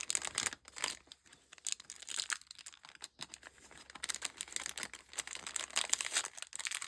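Crinkling, rustling packaging handled and pulled at by hand while being eased open, in irregular crackly bursts that are sparse at first and grow busier near the end.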